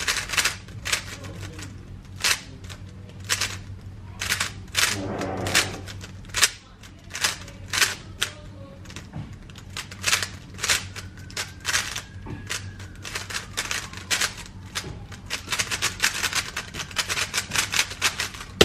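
GAN 13 MagLev speedcube being turned rapidly through a 3x3 solve: quick plastic clicking of the layer turns in irregular bursts, fastest and densest near the end.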